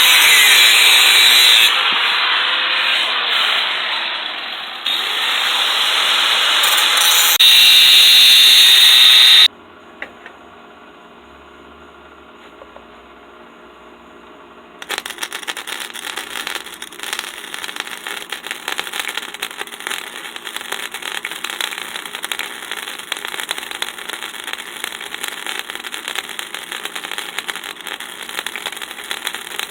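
Metalworking power tools on steel: a loud tool runs for about nine seconds with its pitch wandering, stops abruptly, and after a few quiet seconds a steady crackling starts and carries on.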